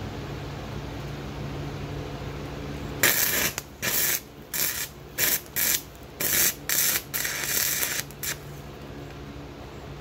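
Stick-welding arc from an E6013 rod fed by three 12-volt batteries in series, laying a tack weld. About three seconds in the arc strikes and crackles and hisses in a string of short stop-start bursts for about five seconds, then stops. An electric fan hums steadily under it.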